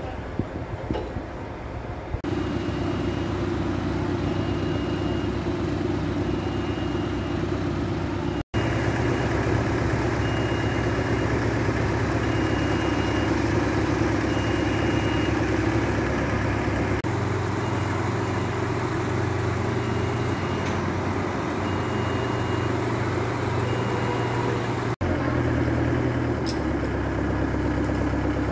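Potain Evy 30-23 self-erecting tower crane's three-phase electric drives running steadily as the crane unfolds its mast and jib. A short high warning beep repeats about every second and a half over the hum, and the hum changes abruptly a few times.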